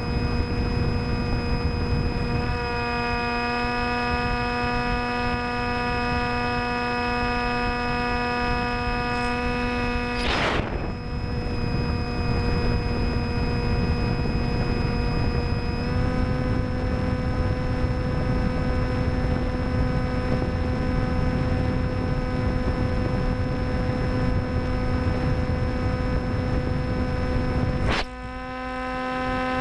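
Electric motor and 10x6 folding propeller of an FX-61 Phantom flying wing running at steady cruise throttle, heard on board: a steady buzzing hum over wind rush, its pitch stepping slightly a few times. A brief sweeping sound comes about ten seconds in and another near the end, where the wind rush drops away.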